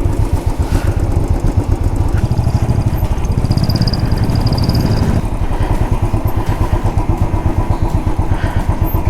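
Royal Enfield Classic 350 single-cylinder engine running steadily at low revs, with its even, rapid thump. A faint high steady tone sounds for a few seconds in the middle.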